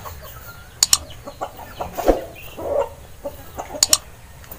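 A cotton shirt is shaken out with sharp fabric snaps, two quick ones about a second in and two more near the end, over hens clucking.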